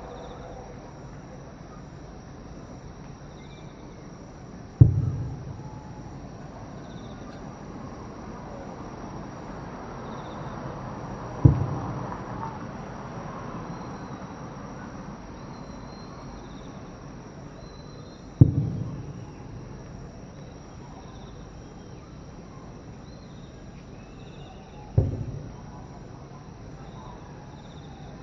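Distant aerial firework shells bursting: four booms about six to seven seconds apart, each trailing off in a rolling echo.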